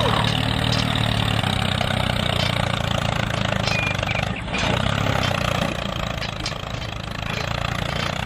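Engine of a miniature tractor running steadily at an even idle, with a brief dip about four and a half seconds in.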